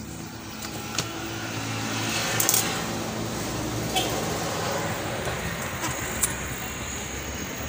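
Scattered light clicks and rattles of RCA cables and plugs being handled and connected, over a steady rushing background noise that swells around two seconds in.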